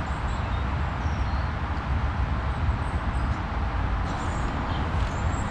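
Steady low rumble of outdoor background noise, with a few faint high chirps over it.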